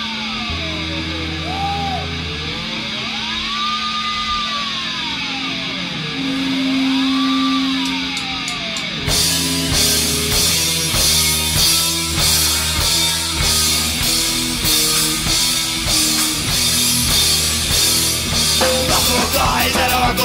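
Punk band playing live: for the first nine seconds or so a sweeping tone rises and falls in slow two-second waves over held bass notes, then drums and the full band come in together.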